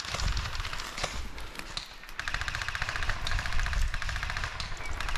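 Airsoft guns firing in fast full-auto bursts: a rapid, even rattle of shots, heaviest in the second half.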